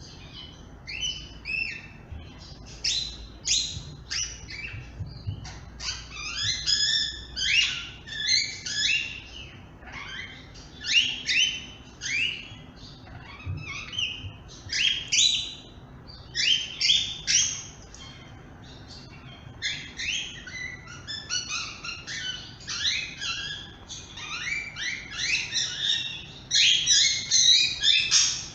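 Grey-headed parrot chirping continuously in quick, shrill runs of short notes with brief pauses between bursts, loudest in a dense run near the end.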